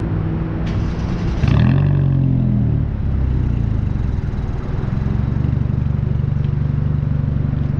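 2017 Kia Forte S four-cylinder engine running. It is blipped up and back down about a second and a half in, then settles into a steady idle with a fast, regular pulse. The car has been misfiring at idle, which the owner puts down to faulty factory ignition coils on cylinders 1 and 2.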